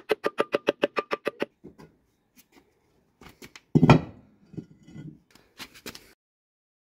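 Hammer tapping a steel nail into a wooden board on a concrete block: about ten quick, ringing strikes in the first second and a half. About four seconds in, a concrete block is set down on a tiled floor with a heavy thud, followed by a few lighter knocks.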